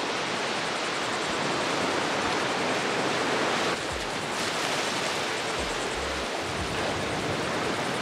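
Ocean surf washing steadily onto the beach, with a few low wind thumps on the microphone in the second half.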